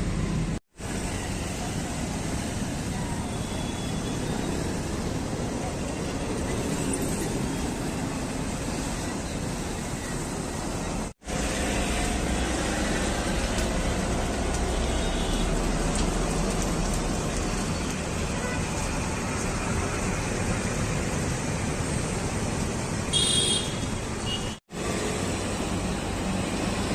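Steady road traffic noise from passing vehicles, with a short high-pitched beep near the end. The sound cuts out for an instant three times.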